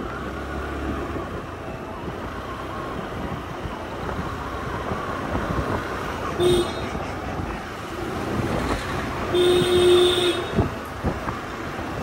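Steady road and traffic noise from travelling by vehicle, with a vehicle horn tooting briefly about six and a half seconds in and again for about a second near the ten-second mark.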